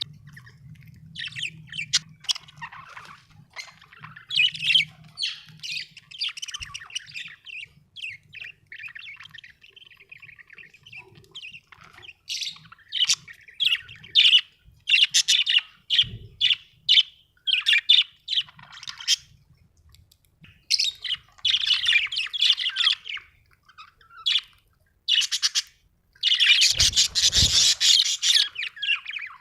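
Budgerigars chirping and chattering in quick, short bursts of high calls, with a longer, denser and louder run of chatter near the end.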